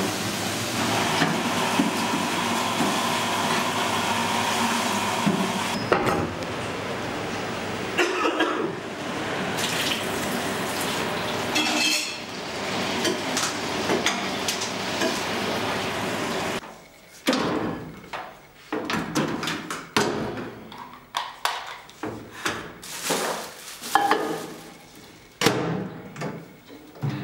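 Kitchen tap running steadily into a stainless-steel sink, with clinks of dishes and cutlery being handled. About two-thirds through the water stops abruptly, leaving a run of separate knocks and clatters of dishes and utensils.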